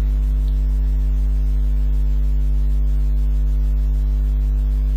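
Loud, steady electrical mains hum: a deep buzz with a stack of overtones above it, unchanging throughout.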